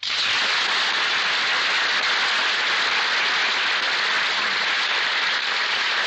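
An audience applauding, greeting a performer who has just been introduced. The clapping starts suddenly and holds steady.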